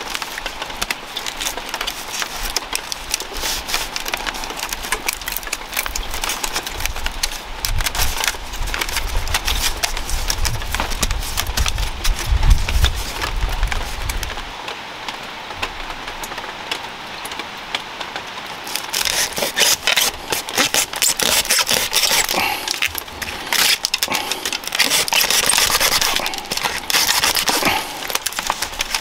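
Thin bamboo strips crackling, clicking and scraping as they are threaded and pulled tight around the rim of a woven bamboo basket. The crackling is dense throughout and gets busier in the last third, with a low rumble for several seconds in the middle.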